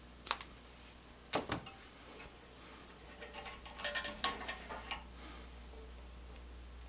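Small clicks and rattles of tools and small parts being handled on a workbench: two sharp clicks early, then a busier cluster of clicks about three to five seconds in, over a low steady hum.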